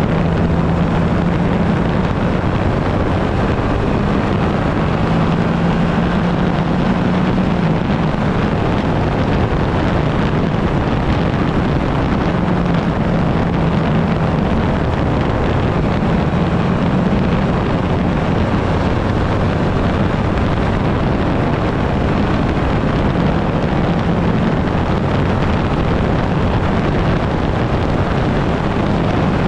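Yamaha Ténéré 700's parallel-twin engine running steadily under way, its note wavering slightly, with wind rushing over the microphone.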